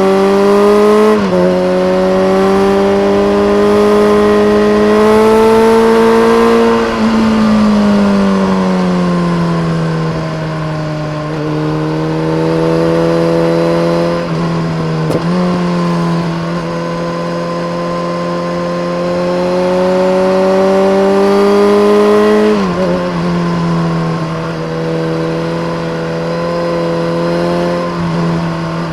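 BMW K1300R inline-four engine through a full Akrapovic race exhaust with a dB killer, pulling under load. It shifts up about a second in, then its pitch climbs steadily for several seconds and falls away as the bike slows. The cycle repeats: another shift about halfway through, a long climb, and a drop back off near the end.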